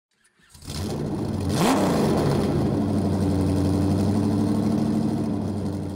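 A vehicle engine starts up and revs once sharply about a second and a half in, then settles into a steady idle that fades out near the end.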